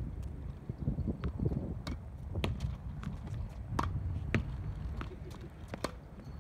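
Tennis ball being rallied against a practice wall: a series of sharp, irregularly spaced knocks as the racket strikes the ball, the ball hits the wall and bounces on the hard court.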